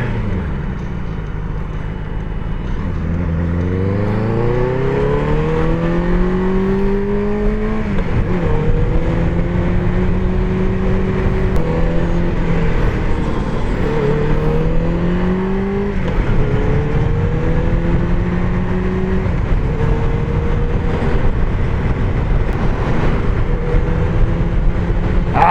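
Benelli TNT600 inline-four motorcycle engine accelerating away and up through the gears: low revs at first, then from about three seconds in the pitch climbs, drops at each upshift and climbs again, several times over. Heard from a microphone at the rider's helmet, with steady wind noise underneath.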